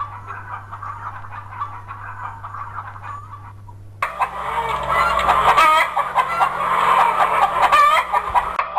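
Hens clucking, a run of short squawking calls that jumps suddenly louder and fuller about four seconds in.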